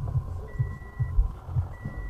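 An electronic warning beep sounding about once a second, each beep just over half a second long, over irregular low rumbling thumps.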